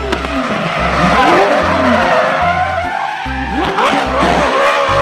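Race car drifting: its engine revs up and down while the tyres squeal and skid. A steady bass beat of background music plays under it.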